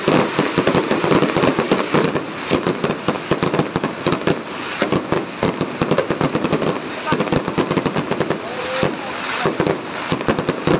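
Aerial fireworks display in full flow: many shells bursting and crackling in rapid, overlapping reports with no gap between them.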